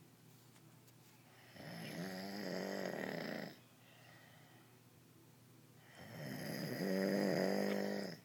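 A sleeping woman snoring: two long snores of about two seconds each, roughly four seconds apart, with quiet breathing between them.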